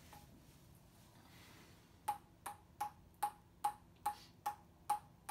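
Ping-pong ball bounced repeatedly on a ping-pong paddle: after about two seconds of quiet, a steady run of about nine light pinging taps, a little over two a second.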